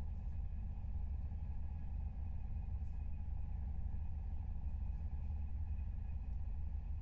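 Steady low rumble of a passenger train running, heard from inside the carriage, with a faint steady whine above it.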